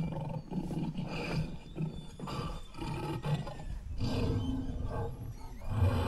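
Recorded dinosaur roars played from a dinosaur display's sound system: several low-pitched, rough roars in a row.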